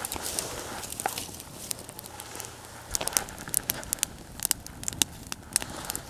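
Young campfire of dry twigs and sticks crackling, with sharp pops scattered through that come more often from about three seconds in.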